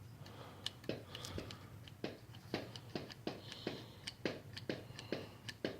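Irregular small clicks and knocks, two or three a second, from hands handling hard parts of a homemade push-button control panel, over a low steady hum.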